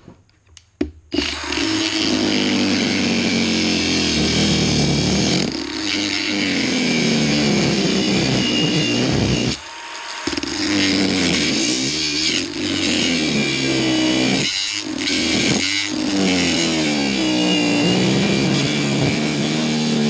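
Cordless angle grinder with a cutoff disc spinning up about a second in and cutting into the hardened steel of a padlock, its motor pitch dipping and recovering as the disc is loaded. It eases off briefly near the middle and then runs on.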